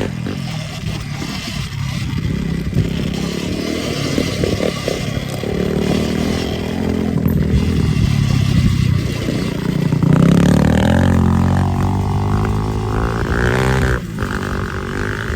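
Sur-Ron Ultra Bee electric dirt bike ridden over rough ground: the electric motor's whine rises and falls with the throttle, with a clear climb in pitch in the last third before it eases off, over constant rattling and scraping from the bike bouncing through the terrain.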